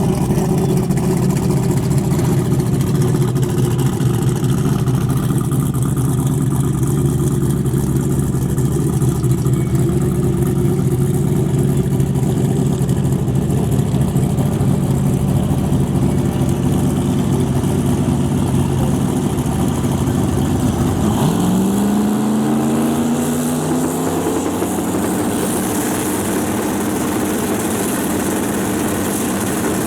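A drag racing car's engine runs at a steady idle. From about two-thirds in it revs up, its pitch climbing in steps, and it rises again near the end.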